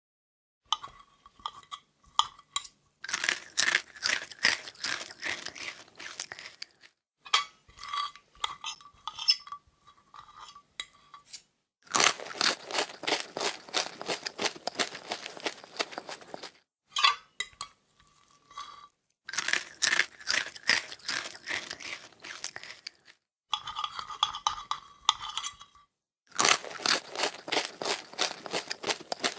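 Close-up crunching of crisp food being chewed: four runs of rapid, dense crunches, with sparser sharp clicks and crackles in the gaps between them.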